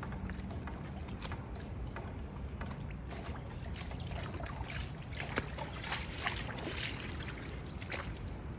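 Steady rushing noise of muddy floodwater flowing across a yard, with a low rumble underneath and scattered faint clicks and ticks.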